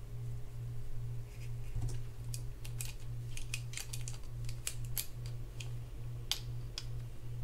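Small, irregular metal clicks and taps from handling the spinning reel's rotor nut and an adjustable wrench, starting about a second in and running for several seconds. A steady low hum sits underneath.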